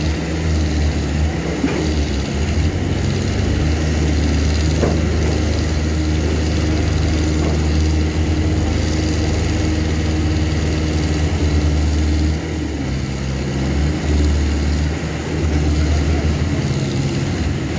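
Diesel engines of Escorts Hydra pick-and-carry cranes running steadily while the cranes hold a rail track panel on their hooks, a loud continuous drone whose note dips and changes briefly about twelve seconds in.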